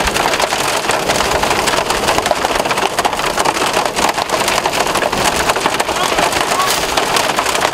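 Quarter-size hail and rain hitting a storm-chase vehicle's body and windows from inside the cab: a dense, steady rattle of sharp hits over a rain hiss.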